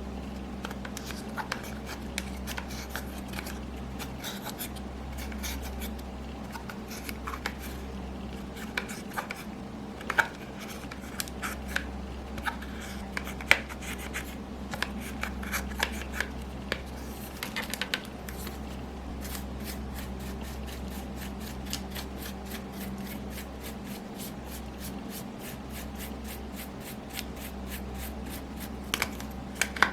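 Hands kneading and stretching slime, making many small sticky clicks and pops that come thick and fast in the second half. A steady low hum runs underneath.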